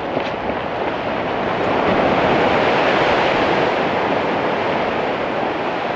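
Ocean surf breaking and washing over a sandstone rock ledge, the wash building about two seconds in and slowly easing off.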